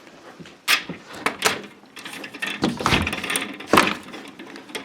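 Doors being shut: a string of knocks and clunks, the heaviest thuds about three seconds and nearly four seconds in.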